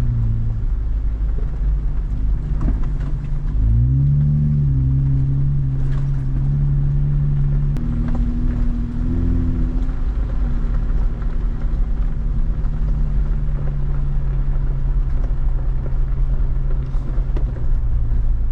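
Jeep Wrangler Rubicon engine running as it drives along a dirt forest road, a steady low drone. The pitch climbs about four seconds in and steps up again near eight seconds as the engine speed changes.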